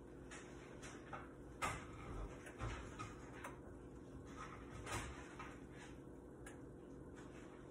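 A few scattered light clicks and knocks, the clearest about a second and a half in and again near five seconds, over a low steady hum: small household handling sounds in a kitchen.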